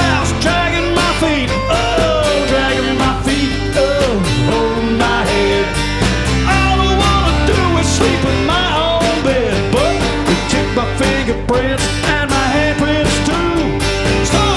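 A live band playing a country-rock song: twelve-string acoustic guitar strumming over bass guitar and drums, with a second guitar and a melody line of bending, sliding notes.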